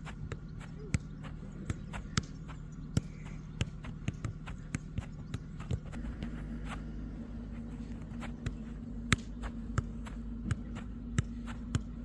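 Football being juggled: sharp thuds of the ball against foot, thigh and head, about two touches a second at an uneven pace. A low steady hum comes in about halfway through.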